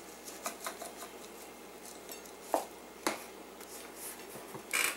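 Grated Parmesan shaker being shaken and tapped over a plate of ravioli: scattered light taps and clicks, with two sharper knocks in the middle and a short scraping rush near the end.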